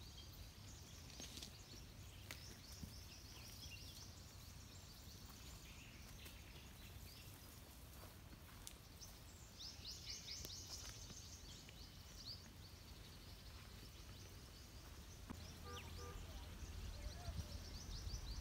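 Faint chorus of small birds chirping and twittering in the trees, busiest about ten seconds in, over a steady low rumble that grows a little near the end.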